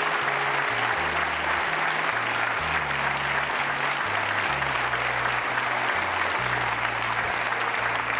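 Studio audience applauding steadily, with a band's bass line stepping from note to note underneath.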